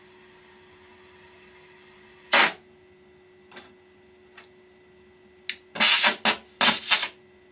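Short, harsh, noisy bursts of metalwork on a radiator: one loud burst about two seconds in, a few light ticks, then a quick cluster of four or five bursts near the end.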